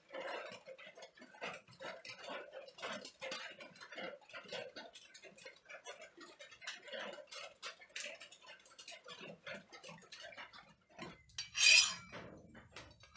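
Water spitting and crackling on the hot leaf-spring steel machete blade as it is cooled, an irregular run of small pops and ticks. Near the end comes one loud, rasping scrape of a file drawn across the hardened steel.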